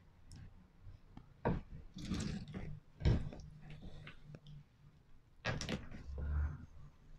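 Small knife cutting and scraping raw dove meat off the bone on a wooden cutting board, with a few dull knocks of the blade and hands against the board.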